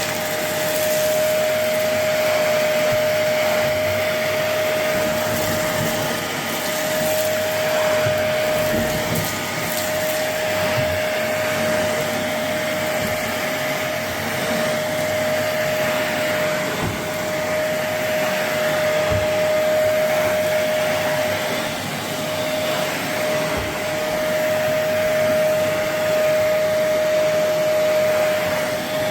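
Goblin Essentials bagless cylinder vacuum cleaner running steadily, its motor giving a constant whine over a rushing hiss of air, with faint crackles of debris being picked up now and then.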